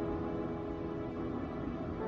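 Eerie background music of long held notes.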